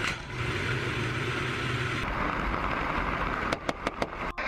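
Helicopter engine and rotor noise, a steady dense rumble that shifts in character about two seconds in, followed by a few sharp cracks near the end.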